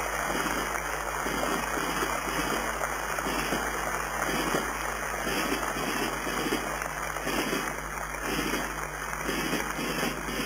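Audience applauding steadily: a dense, continuous clatter of many hands clapping.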